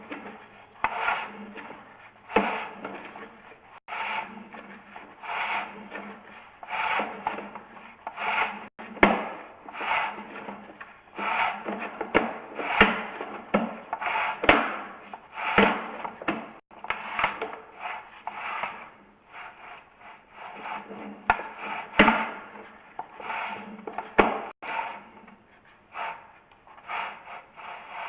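Sewer inspection camera's push cable rubbing and scraping as it is fed along, in repeated strokes about once a second with occasional sharp clicks, over a faint low steady hum.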